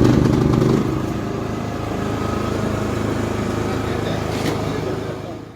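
Kirloskar iGreen petrol portable generator's engine running steadily with the choke off, a little louder for the first second and then even, fading out near the end.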